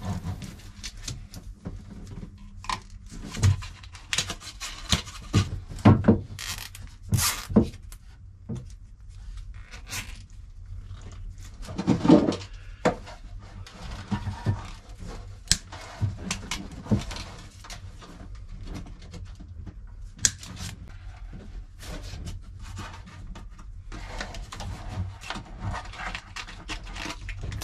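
Plastic cable ties being pulled tight around a wire bundle and trimmed with side cutters: irregular clicks, rattles and a few sharper snaps, over a low steady hum.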